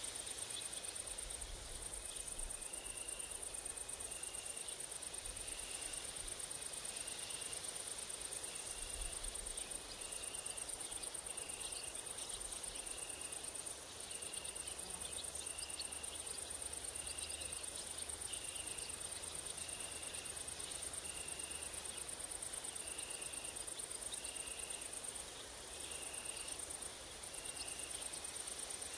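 Grasshoppers and crickets stridulating in summer woodland: a continuous high-pitched buzz that breaks off briefly a few times, with a short chirp repeating about once a second. A faint low rumble of wind lies underneath.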